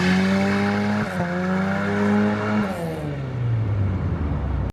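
Car engine accelerating. Its pitch climbs, dips briefly at a gear change about a second in, and climbs again. Shortly before three seconds the throttle is lifted and the engine note falls away until it cuts off abruptly near the end.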